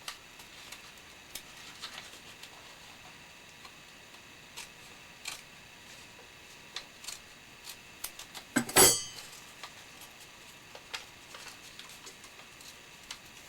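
Paper being cut and handled: faint scattered ticks and scratches as a blade scores only the paper's surface, with one louder short rasping noise about nine seconds in.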